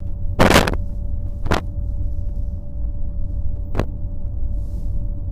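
Steady low rumble of a moving vehicle heard from inside, with a constant faint hum. Three sharp knocks cut through it: the loudest about half a second in, then one at about a second and a half and one near four seconds.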